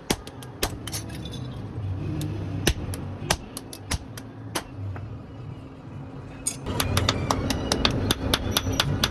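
Hammer blows ringing on steel, irregular and spaced at first, then coming much faster about two-thirds of the way in, over a steady low hum.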